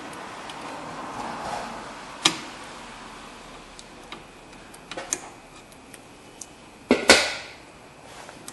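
Metal clicks and clinks of pliers working a small clip off the rear drum brake hardware of a 2000 Honda CR-V. There is a sharp click about two seconds in and a few lighter ticks. The loudest is a double clink with a brief ring about seven seconds in.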